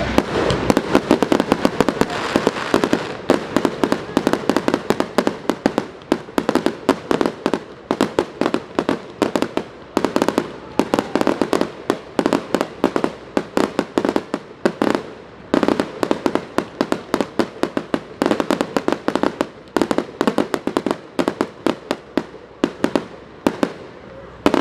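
Fireworks and firecrackers going off in rapid strings of sharp cracks and pops. The rattle is near-continuous for the first few seconds, then comes in dense clusters with short lulls between them.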